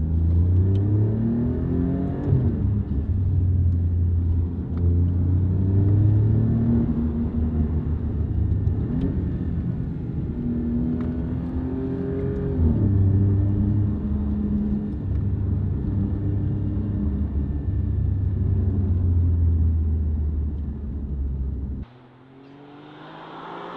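Alfa Romeo Giulia Quadrifoglio's twin-turbo V6 with a Pogea Racing exhaust, heard from inside the cabin, accelerating hard through the gears. The engine note climbs and drops sharply at each of several upshifts. Near the end it cuts to the same car, quieter, coming closer with its engine note rising.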